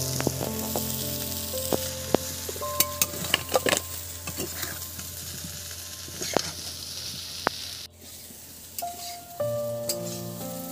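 Spiced potatoes for jeera aloo sizzling in oil in a pan while a spatula stirs them, with scattered clicks and scrapes against the pan. There is a brief lull about eight seconds in.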